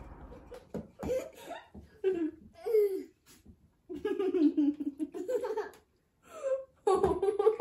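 Children laughing and giggling in several short bouts with brief pauses between them.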